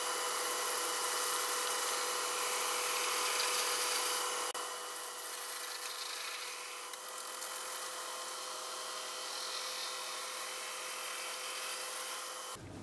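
Wood lathe running while a gouge cuts the skin off a spinning turnip: a steady hiss of cutting over a constant motor tone, a little quieter from about four and a half seconds in.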